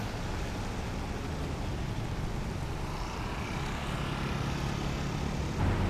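A steady engine drone under continuous outdoor noise, with a low hum that strengthens for a while past the middle.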